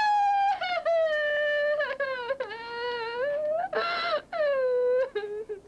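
A woman's long, high-pitched wail of dismay, falling in pitch and broken into several drawn-out cries, with a harsher, breathier cry about four seconds in.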